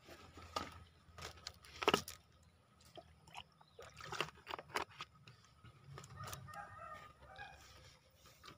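Domestic chickens clucking, with short calls between about six and seven and a half seconds in. A handful of sharp clicks run through it, the loudest about two seconds in.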